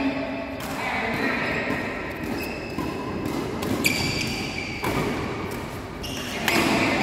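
Badminton rally: rackets striking the shuttlecock in sharp hits, with players' footfalls on the court floor, echoing in a large hall; voices in the background.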